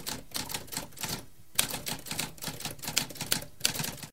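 Typewriter keys striking in quick succession, several keystrokes a second, with a short pause a little over a second in. The typing cuts off suddenly at the end.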